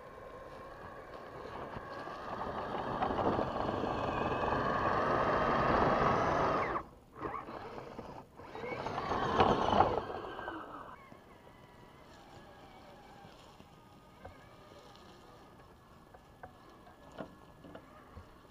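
Electric motor and gear drivetrain of a Traxxas TRX-4 Sport RC crawler whining under throttle as it climbs close by. It swells over the first several seconds, cuts off sharply about seven seconds in, comes back briefly and stops again about ten seconds in. After that only a faint steady whine with a few light ticks remains.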